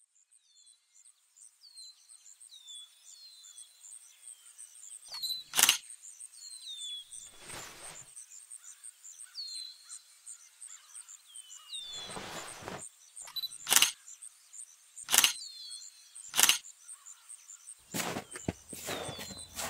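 Woodland bird ambience: birds giving short chirps that fall in pitch, repeated every second or so, over a steady very high rapid pulsing. Sharp clicks cut in several times, about five seconds in and then three in quick succession later, with two brief rustling noises between them.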